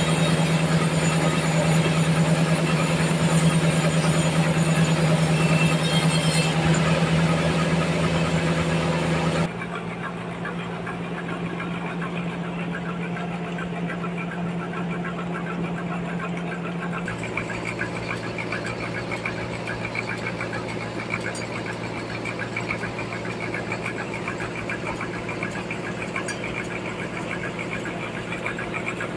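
Large band sawmill running, its blade cutting through a big trembesi (rain tree) log with a steady low hum under a loud hiss. About nine seconds in the sound drops suddenly to a quieter, steady machine hum.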